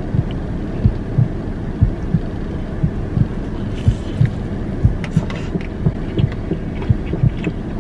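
Steady low hum with repeated low thumps. About four seconds in come faint crisp crunching clicks as a consomé-dipped fried birria taco is bitten.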